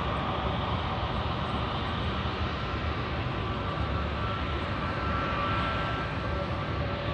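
Airliner engines running: a steady rush of noise, with a faint high whine coming in about two seconds in.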